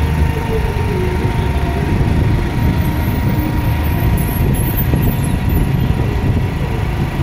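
Steady engine and road noise of a moving vehicle.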